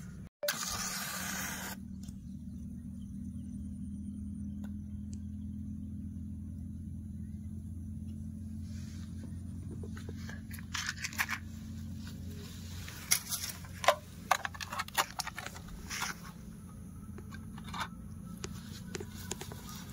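Aluminium foil tray crinkling and crackling as it is handled and set on a small tin-can stove, in sharp irregular crackles through the second half. Near the start there is a short scratchy hiss.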